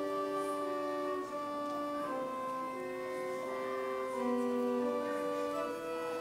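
Organ playing slow, sustained chords, several held notes sounding together and changing in steady steps.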